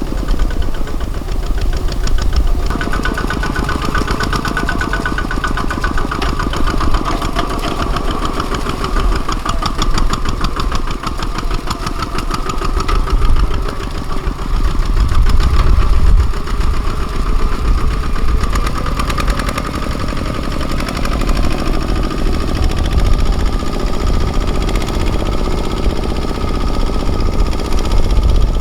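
Kubota ZT155 mini tractor's single-cylinder diesel engine running steadily while ploughing, a fast, even chugging that grows louder for a few seconds around the middle.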